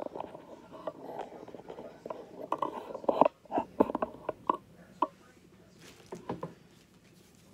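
Handling noise as craft supplies are moved and set down on a plastic-covered table: a quick run of irregular knocks, taps and crinkles that thins out to a few isolated ones near the end.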